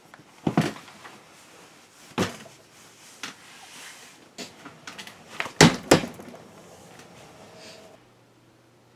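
A scatter of knocks and clatters from objects being handled on a desk, the loudest a pair of sharp knocks close together a little past halfway.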